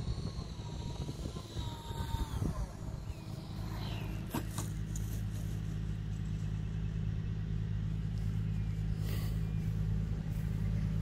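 RC Harrier model's engine whine falling in pitch about two seconds in as it is throttled back. It is followed by a steady low hum that grows slowly louder.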